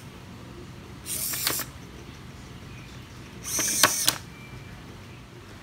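Two hobby servo motors of an Arduino robot whirring in two short bursts a couple of seconds apart, the second ending in a few sharp clicks as the robot moves.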